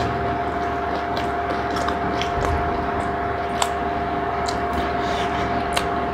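A steady mechanical room hum with a constant tone, overlaid by faint scattered clicks and smacks of two people eating curry and naan with their fingers.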